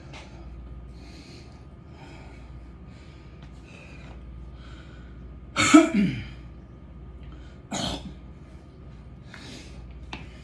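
A man breathing hard and coughing: two loud coughs close together a little past halfway, then a shorter, sharper burst about two seconds later, while he is winded from exercise.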